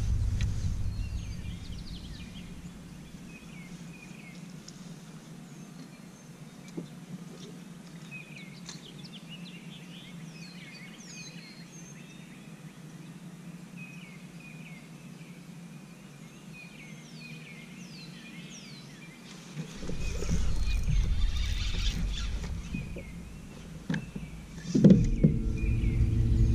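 Songbirds chirping over a quiet lakeshore, many short falling notes, while a low hum fades out in the first couple of seconds. A low rumble comes in about two-thirds of the way through, followed by a sharp knock near the end.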